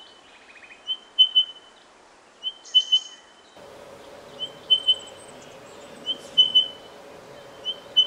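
Spotted pardalote calling: a high three-note whistle repeated over and over, about every one and a half seconds. A faint steady hum comes in about three and a half seconds in.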